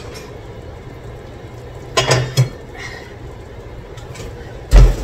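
Kitchenware being handled on a counter: a quick clatter of two or three clinks about two seconds in, then one heavy thump near the end, the loudest sound.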